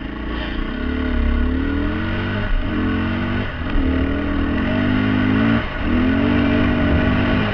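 Dirt bike engine under acceleration along a trail. Its pitch breaks and drops sharply three times, about two and a half, three and a half and five and a half seconds in, as the rider shifts gears.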